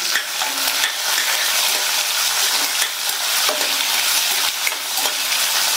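Diced green capsicum sizzling in hot oil in a stainless steel kadai while a steel spatula stirs and scrapes it around the pan.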